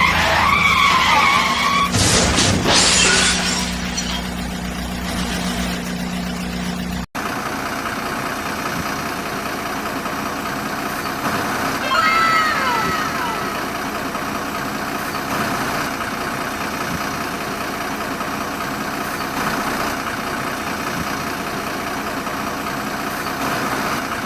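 Steady vehicle engine running, with a noisy crash-like burst two to three seconds in. About seven seconds in the sound cuts abruptly to a different steady engine hum, with short falling whistle-like glides around the middle.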